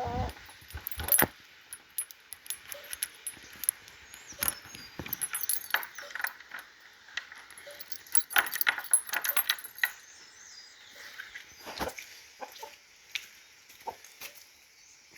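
Irregular clatter and knocks of gear being handled, with a hen clucking faintly now and then.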